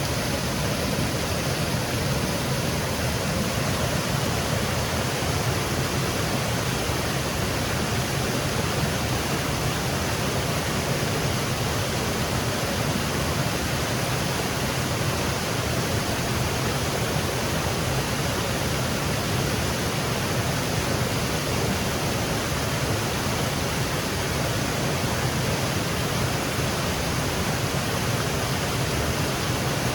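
Small woodland waterfall cascading, a steady unbroken rush of falling water.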